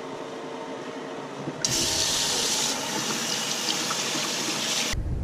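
A sink tap is turned on about one and a half seconds in, and its water stream runs steadily onto a pleated K&N air filter, rinsing the cleaner out of it. The running water cuts off suddenly near the end, giving way to a low rumble.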